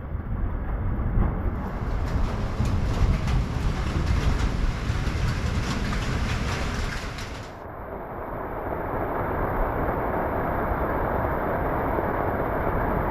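A rainstorm. For about seven seconds a deep, heavy rumble runs under many small ticks of raindrops. Then the sound changes abruptly to a steady hiss of rain.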